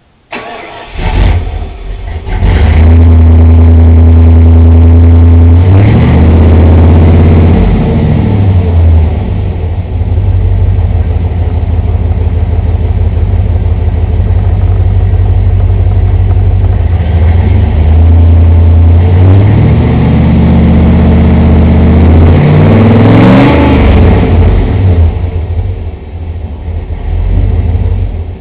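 1993 Ford SVT Lightning's 5.8-litre Windsor V8 starting and catching within about a second, then settling into a steady, loud idle. It is revved up and back down about six seconds in and again near the end, with steady idle between.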